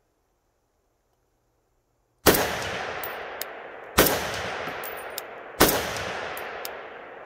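Three shots from a Browning BAR Match semi-automatic rifle in .308 fitted with a muzzle brake, starting about two seconds in and fired about a second and a half apart. Each shot has a long echo dying away, with short metallic pings between the shots.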